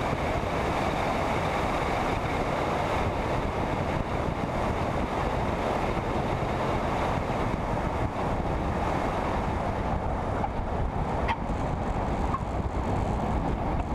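Steady engine and airflow noise inside the cockpit of a single-engine Piper Cherokee on final approach to land, with a few faint ticks late on.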